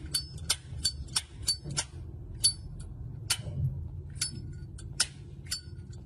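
Chrome Zippo windproof lighter's hinged lid repeatedly flicked open and snapped shut: a string of sharp metallic clicks, each with a short bright ring, with a brief pause in the middle.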